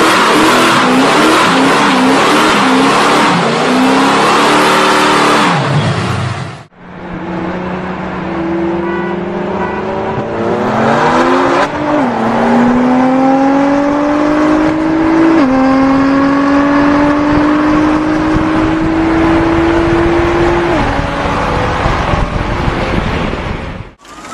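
A car engine held at high revs during a tyre-smoking burnout, its pitch wavering up and down, cut off suddenly about seven seconds in. Then a sports car's engine accelerating hard, its pitch climbing and dropping sharply at three gear changes.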